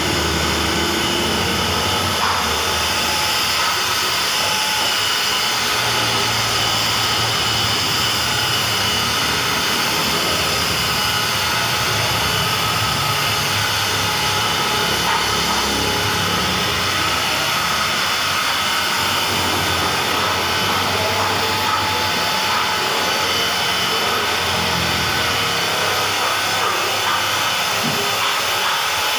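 Electric rotary polisher running steadily with a foam buffing pad on car paint: an even motor whine over a steady rushing noise.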